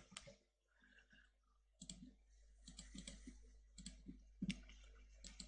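Faint clicks of a computer mouse, a handful spread irregularly over a few seconds, with near-silent room tone between them.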